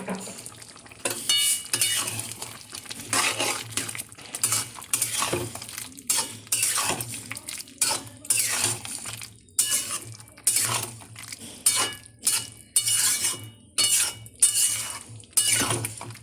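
A cooking spoon stirring and scraping vegetable curry in a pan, working in the garam masala and honey just added. The scraping strokes repeat a little more than once a second.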